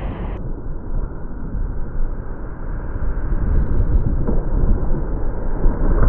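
Rushing whitewater and the roar of a waterfall as a whitewater kayak runs into the drop, heard muffled through a wet action-camera mic: a deep rumble whose high end cuts off about half a second in, growing louder near the end.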